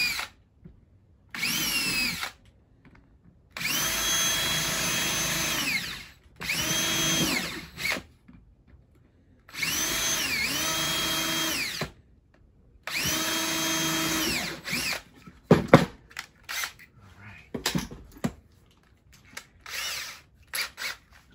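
Cordless drill run in short bursts into a wooden 2x4 block: five separate runs, each spinning up to a steady whine and winding down, the pitch sagging briefly under load in one of them. After about 15 seconds the drilling stops and scattered sharp clicks and knocks follow.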